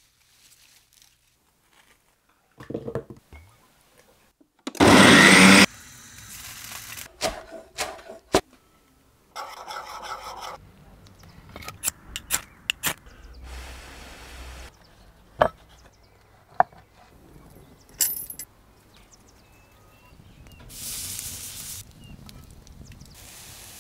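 A string of short close-up handling and cooking noises: clicks, knocks and rustles. There is a loud burst of rough noise about five seconds in and a short buzzing rasp about ten seconds in.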